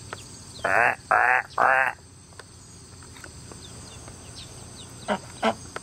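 White domestic duck quacking three times in quick succession, then two short calls near the end, over a faint steady insect trill.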